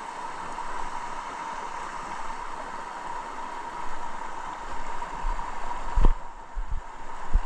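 Steady rush of flowing river water, with a thin steady whine over it and a few low thumps near the end.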